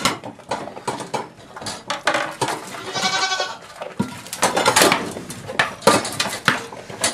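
A goat bleats once, a call lasting under a second about three seconds in, amid irregular knocks and clatter.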